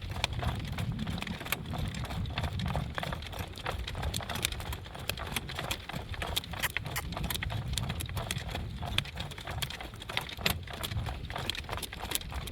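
Hooves of a horse pulling a driving cart, clip-clopping steadily, over a steady low rumble.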